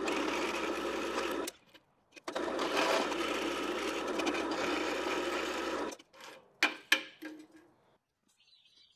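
Drill press motor running while its twist bit cuts into a small steel block held in a machine vise. There are two drilling passes, one stopping about a second and a half in and a longer one from about two and a half to six seconds in, followed by a few sharp metallic clicks.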